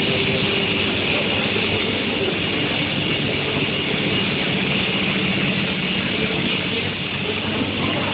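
Industrial machinery running steadily in a steel-sheet heat-treatment plant: an even mechanical noise with a faint steady high tone over it.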